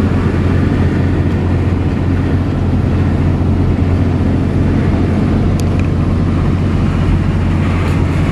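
Steady low drone of a 2005 Ford F650's 5.9-litre Cummins inline-six diesel heard from inside the cab while driving at a steady speed, mixed with road and tyre noise.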